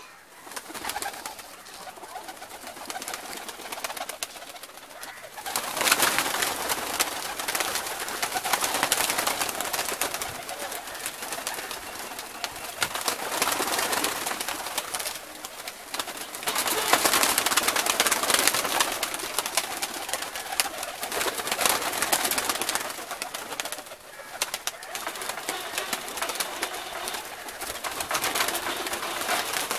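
Domestic pigeons in a wire-mesh aviary: repeated loud, rustling bursts of wing flapping every few seconds, with some cooing.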